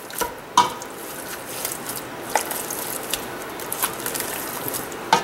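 A masher squishing and breaking up boiled red potatoes with butter and milk in a stainless steel pot, with scattered knocks of the masher against the pot over a low steady hiss.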